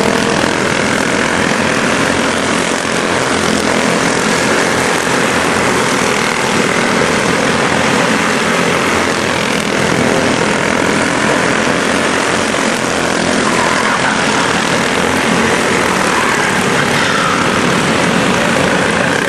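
A pack of quarter midget race cars running at racing speed, their small engines making a loud, steady buzzing drone. The pitch rises and falls slightly as individual cars pass and accelerate.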